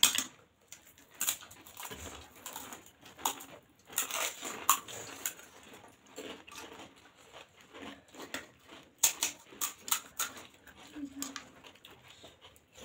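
Pani puri being eaten: crisp puri shells cracking and crunching between fingers and teeth, with wet chewing, and spoons clinking on steel plates.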